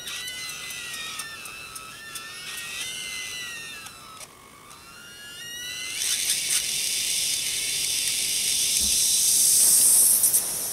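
Brass Hero's engine (aeolipile) model heated by a meths burner. First a thin, wavering whistle from its steam jets slides up and down in pitch. About six seconds in, a loud steady hiss of escaping steam takes over and grows louder toward the end as the boiler comes up to pressure.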